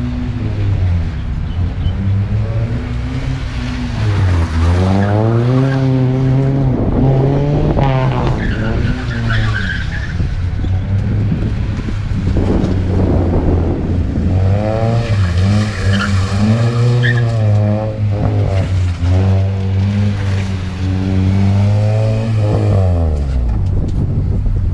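Car driven hard through a motorkhana test: the engine revs up and down again and again, with tyre squeal in several places. The revs fall away near the end.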